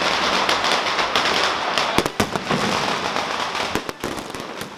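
Fireworks going off in a dense, rapid crackle of small pops, with a few sharper cracks about two seconds in, dying away toward the end.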